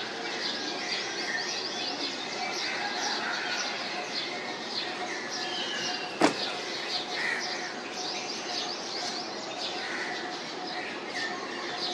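Small birds chirping, many short high chirps repeating over steady background noise, with one sharp click a little after halfway through.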